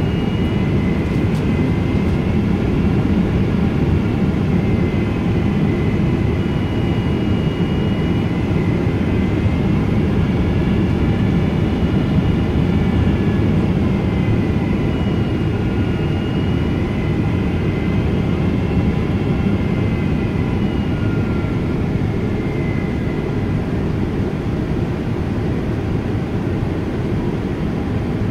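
Boeing 777-200 airliner heard from inside the cabin during its approach. A steady, loud rumble carries through, with faint engine whine tones above it that slowly drift up and down in pitch as the thrust changes.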